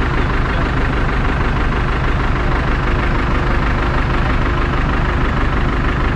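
Diesel engine of a truck-mounted mobile crane running steadily, powering the crane while it holds a suspended narrowboat.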